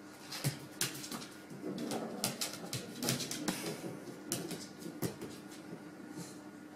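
A dog's claws and paws clicking and tapping on a hardwood floor as it bats at an egg, a quick run of sharp clicks that dies down after about five seconds.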